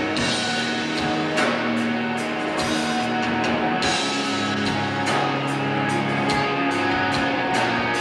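Live rock band playing: strummed acoustic and electric guitars and bass over a drum kit with steady cymbal and drum hits.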